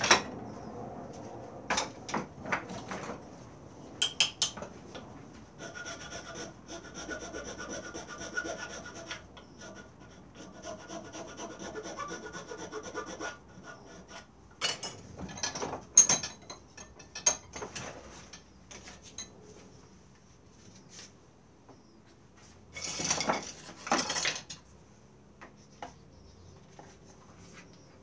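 Hand tool scraping and rasping at the carved wooden head of a thumbstick in stretches, among scattered clicks and knocks, with a louder burst of rubbing about two-thirds of the way in.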